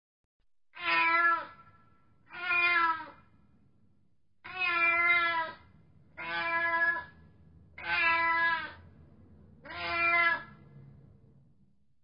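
A cat meowing six times: separate drawn-out meows, each under a second long, a second or two apart.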